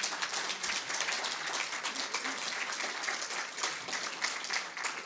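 Audience applauding, many people clapping at once at a steady, even intensity.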